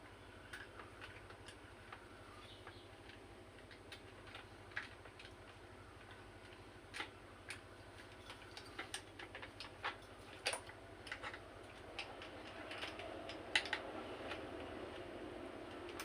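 Irregular light clicks and taps of small hard parts being handled, coming more often in the second half, over a faint hum that slowly grows louder.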